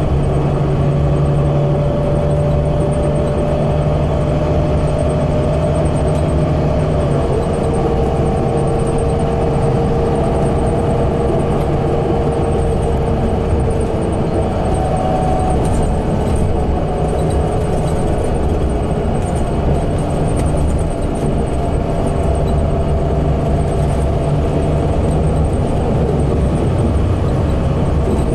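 Cabin sound of a 2016 Gillig BRT bus with a Cummins Westport natural-gas engine and Allison B400R transmission cruising at freeway speed: a steady engine drone and road rumble. A few held tones in the drone change pitch about seven seconds in and again about twenty-one seconds in.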